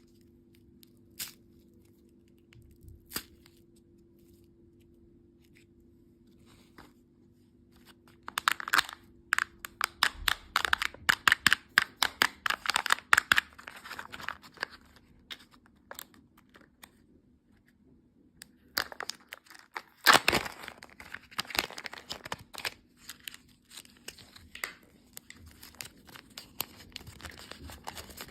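Candy wrappers being torn open and crinkled by hand. A few single clicks come first, then a dense run of crinkling and tearing about a third of the way in, a short lull, and more crinkling and snaps through the second half.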